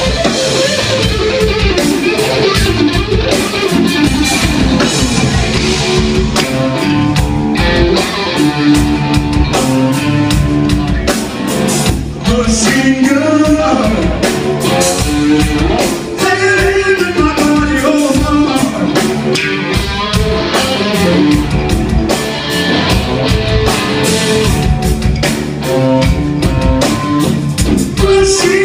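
Rock band playing live: electric guitar over bass and drums.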